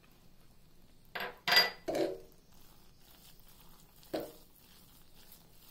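A metal spoon clinking against the pressure cooker pot of cooked millet upma. There are three quick knocks about a second in, the middle one loudest with a short metallic ring, and one more knock near four seconds.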